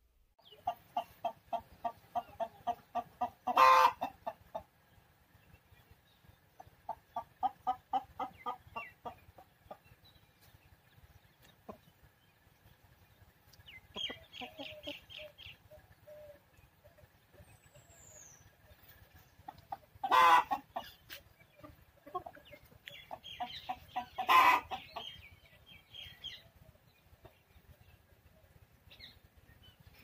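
Desi chickens clucking in runs of quick, evenly spaced clucks, with three much louder, short calls standing out about 4, 20 and 24 seconds in.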